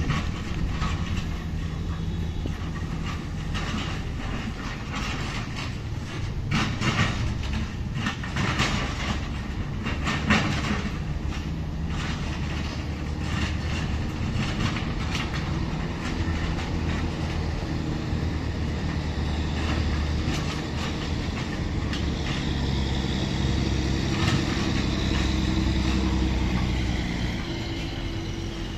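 Backhoe loader's diesel engine running steadily while its front bucket works a pile of broken concrete, with a run of clattering knocks of rubble against the steel bucket about a quarter to a third of the way in. Later the engine works harder and runs louder as the loaded bucket lifts.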